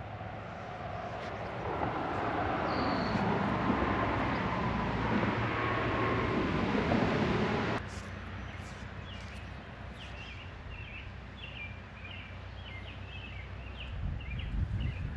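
A loud, steady rushing noise swells up and then cuts off abruptly about eight seconds in. A bird then chirps in quick, repeated short calls over a quieter background.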